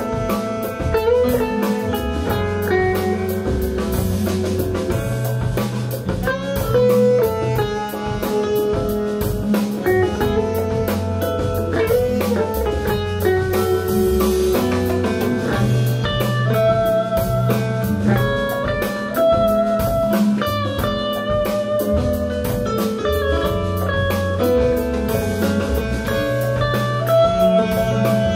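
Live band playing, led by an electric guitar, over bass and a drum kit.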